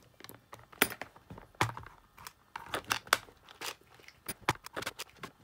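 Hand handling noise: a thin remote-control cable and small parts are moved about on a work mat, giving a run of irregular clicks, taps and rustles.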